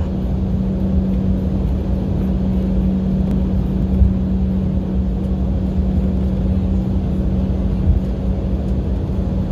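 Cabin noise of an Embraer 195 jet taxiing: the steady hum of its GE CF34 turbofan engines over a low rumble from the wheels rolling on the taxiway.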